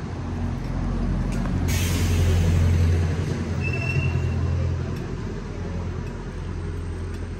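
A bus engine runs close by with a steady low hum, loudest around two to three seconds in. A sudden hiss of air brakes starts about two seconds in.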